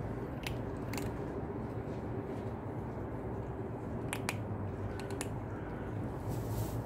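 Cats crunching dry kibble: a handful of sharp, brief crunches over a steady low hum.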